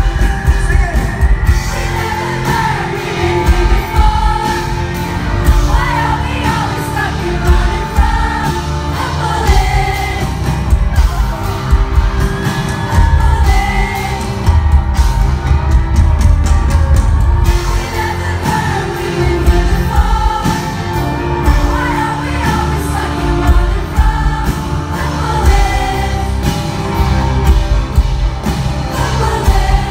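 Live band playing through a concert PA, with a male voice singing the melody over keyboards, guitar and heavy bass.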